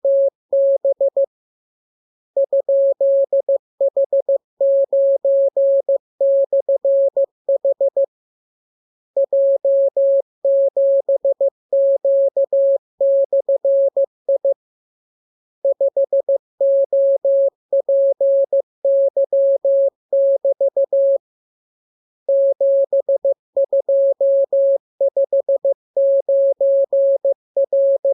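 Morse code practice signal: a single steady mid-pitched tone keyed on and off in dots and dashes. It is sent in runs of characters, with a pause of about a second every six or seven seconds.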